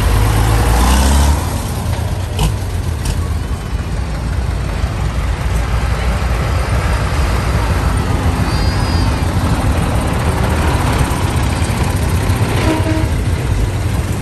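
Tractor diesel engines running at low speed as tractors drive past one after another, a large Ford 8630 among them; the engine rumble is loudest in the first second or so, then steady.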